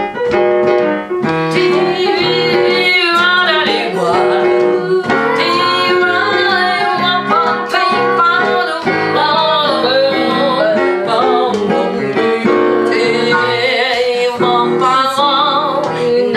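A woman's voice singing a jazz improvisation, a wavering line with vibrato, over piano accompaniment.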